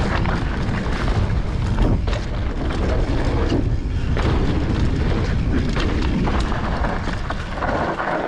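Mountain bike ridden fast down a dirt trail: wind buffeting the on-bike or helmet camera microphone, with tyre roar and scattered knocks and rattles from the bike over rough ground.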